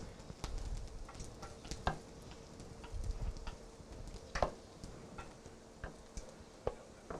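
A spatula scraping thick cake batter out of a mixing bowl and into a baking pan, with irregular soft scrapes and small taps of the utensil against the bowl.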